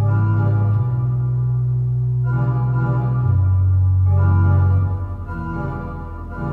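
Church organ playing slow sustained chords over held low bass notes that move from note to note, growing quieter about five seconds in.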